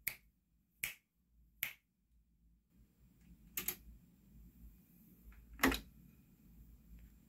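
Sharp mechanical clicks of buttons being pressed on a Yamaha K-960 cassette deck: three quick clicks about a second apart, then two louder ones, the last the loudest. A faint steady hum comes in about three seconds in.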